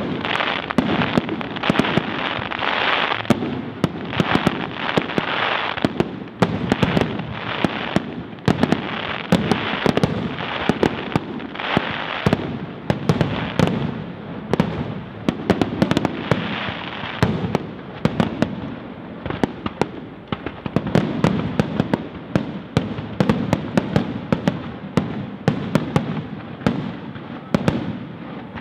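Fireworks display: aerial shells bursting overhead, many sharp bangs in quick succession with no let-up.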